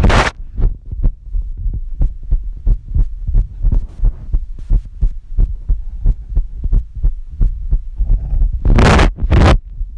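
Human heartbeat picked up through a phone heartbeat app: a rapid, regular run of low thumps. Near the end two loud rubbing bursts of handling noise cut across it.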